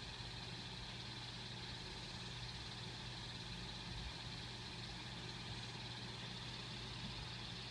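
Steady low hum with a constant hiss, unchanging throughout; no distinct chewing or crunching stands out.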